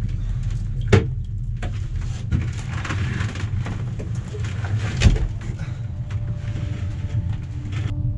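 A steady low rumble with two sharp knocks of fishing gear being handled on the shack's floor, one about a second in and a louder one about five seconds in; a faint steady hum comes in after about six seconds.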